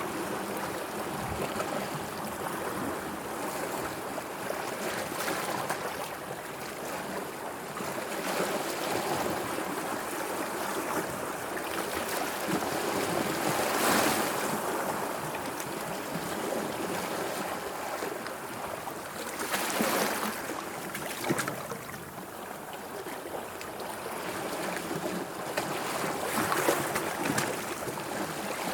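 Sea water washing and lapping in small waves, a steady wash with a few louder surges in the middle and near the end.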